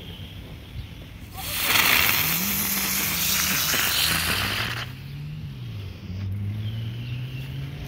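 A small ground fountain firework spraying sparks with a loud hiss for about three and a half seconds, then cutting off suddenly. A low engine hum rising and falling in pitch from a passing vehicle runs under it and carries on afterwards.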